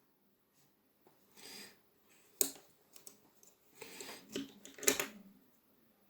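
Several sharp clicks and short scraping sounds of small parts being handled and worked on, the loudest clicks about two and a half seconds in and just before five seconds in.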